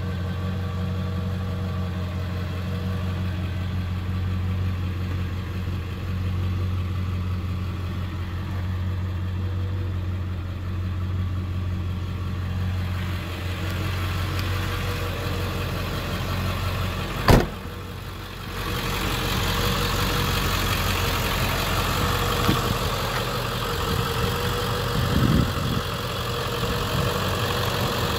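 2001 Ford Excursion's 7.3 L Powerstroke turbo-diesel V8 idling steadily, first a muffled low hum heard inside the cabin. A single sharp bang comes about seventeen seconds in, and from about nineteen seconds the idle is heard in the open, louder and brighter.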